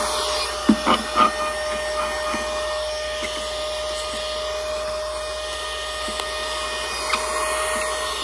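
Compact handheld electric air duster running at full speed, a steady high motor whine with a rushing air sound. A few sharp knocks from handling come about a second in.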